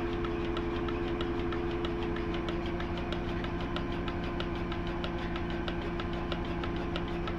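A motor-driven farm machine running steadily: a constant hum with a quick, even ticking over it.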